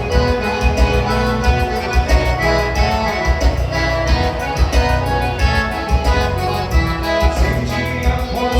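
Music with a steady beat and sustained melody notes, the kind played for dancing.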